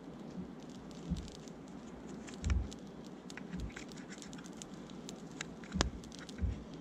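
Dry grass and reed tinder crackling as a small fire catches, with many sharp irregular snaps and pops over a steady hiss. A few low thuds come in between, the loudest about six seconds in.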